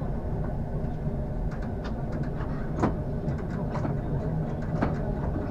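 Metro train heard from its driver's cab, rolling slowly: a steady low rumble with a few sharp clicks scattered through it.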